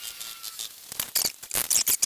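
Sharp clicks, taps and scratchy scrapes from fitting fasteners around the edge of a hardboard car interior panel lying on cardboard. The loudest cluster of clicks and scrapes comes a little past halfway.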